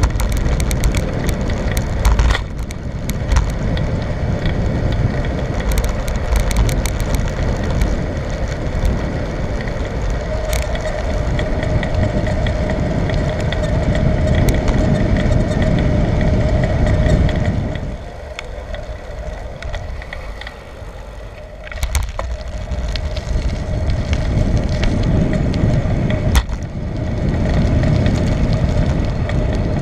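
Wind buffeting the microphone and tyre noise from a bicycle being ridden, with rattles and knocks from bumps in the surface. It drops for a few seconds about two-thirds of the way through.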